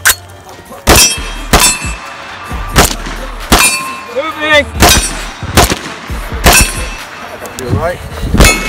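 AR-15 rifle firing single shots, about nine, unevenly spaced at roughly one a second. Several shots are followed by a brief metallic ring.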